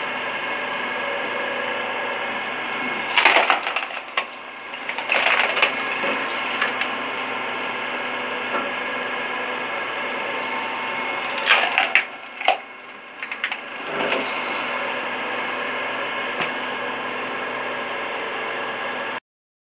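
Electric motor of a homemade screw-cone log splitter running with a steady hum while its threaded cone screws into logs. Twice, about three and about eleven seconds in, a log cracks and splinters apart in a run of loud snaps. The sound cuts off suddenly near the end.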